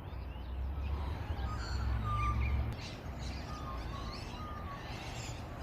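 Faint short chirps and whistles of birds over outdoor ambience, with a low rumble under them that stops a little under three seconds in.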